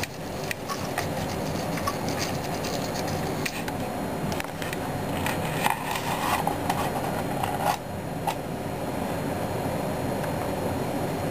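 Fingers handling small model-kit parts on a scale model engine: scattered light clicks and scratchy scrapes, busiest for a couple of seconds past the middle, over a steady background hiss.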